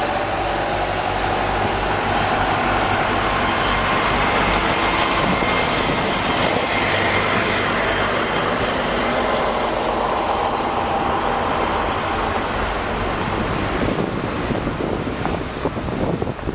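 A car being driven, with steady tyre and engine noise filling the sound, growing uneven near the end.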